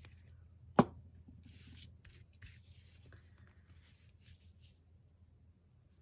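A sharp click about a second in as a plastic glue stick is set down on the table, then soft paper rustling and rubbing as a glued strip of torn paper is laid along a book page and smoothed down by hand.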